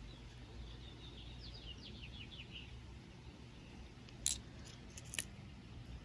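Two sharp clicks about a second apart as stone arrowhead pendants are set down on a table. Before them, a faint run of quick, falling, high chirps, like a small bird twittering in the background.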